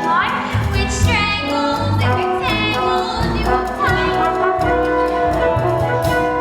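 A woman singing a musical-theatre song over orchestral accompaniment with brass.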